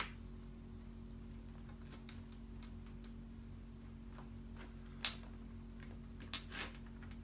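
Scattered faint crinkles and taps as hands press and smooth a vinyl stripe decal onto a plastic football helmet shell, the sharpest right at the start and about five seconds in, over a steady low hum.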